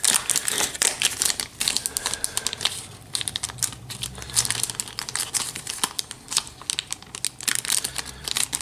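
Thin clear plastic bag crinkling as it is handled and opened, a dense run of irregular crackles.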